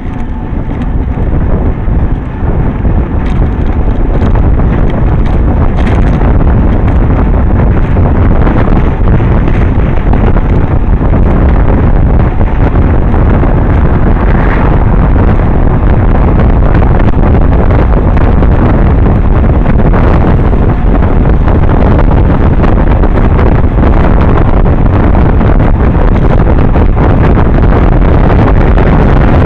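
Wind buffeting the microphone of a camera carried on a moving road bicycle: a loud, steady rumble that swells over the first couple of seconds.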